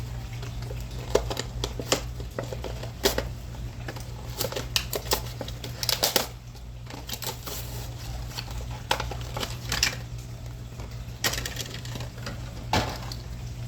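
Plastic and cardboard packaging of a die-cast toy car being pried open by hand: irregular clicks, snaps and crinkles, busiest about six seconds in, over a steady low hum.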